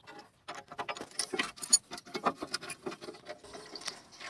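Quick, irregular metallic clicking and rattling as a wrench works out the second of the two 18 mm bolts holding the rear brake caliper carrier on an Audi A6 C7.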